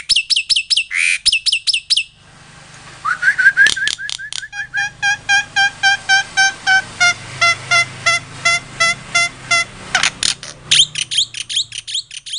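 A songbird singing: a quick run of sharp down-slurred whistles, then a long string of short evenly repeated notes at about three to four a second, then more quick down-slurred whistles near the end.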